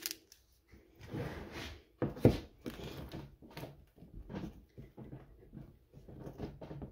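Bath bomb mix being pressed and packed into a mold, with a run of short scrapes and knocks against a wooden table and one louder knock about two seconds in.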